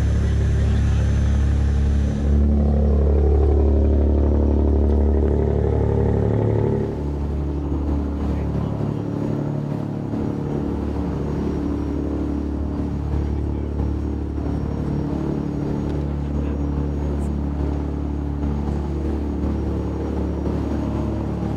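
An 85-foot sportfishing boat's engines running under way, a steady low drone, with water rushing past the hull. The level steps down about seven seconds in.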